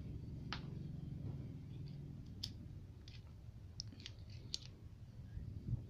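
Faint, scattered clicks and light taps of the small metal parts of a motorcycle cam chain tensioner being handled, over a low steady hum.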